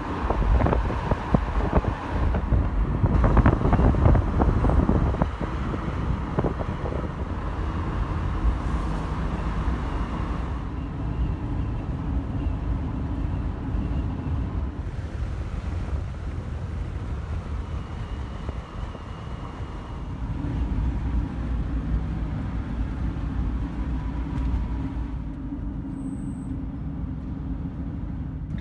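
Car driving on a highway, heard from inside the cabin: steady road and engine noise. The first six seconds are louder, with a gusty rumble.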